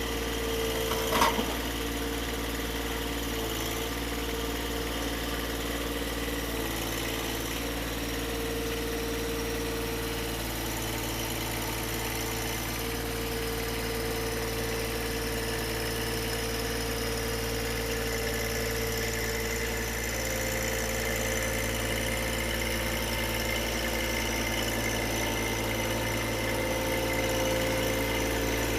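An engine idling steadily, with one short sharp knock about a second in.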